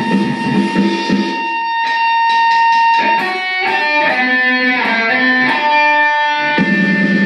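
Electric guitar played loud. A chugging rhythm stops about a second in and one note is held. A lead line of separate notes then steps up and down, and the chugging rhythm comes back in near the end.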